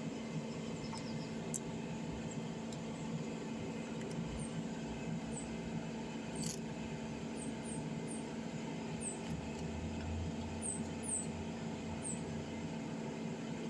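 A small screwdriver undoing the tiny screws inside a Samsung Galaxy A03s, heard as short, faint, high squeaks and a few light clicks over a steady low hum.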